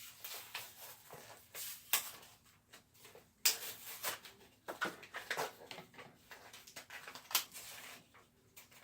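Irregular light clicks, taps and rustles of hands handling small plastic containers and packets of slime add-ins, with a few sharper clicks about two, three and a half and seven seconds in.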